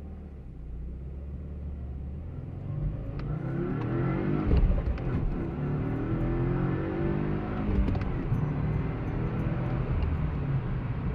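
2015 Subaru WRX's turbocharged 2.0-litre flat-four engine pulling away and accelerating, its pitch rising from about three seconds in, heard from inside the cabin.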